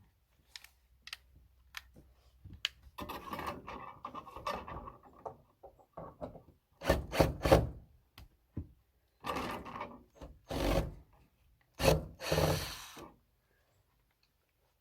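Scattered knocks and clicks with several scraping, rubbing bursts of a second or two each, from hands-on gutter installation work.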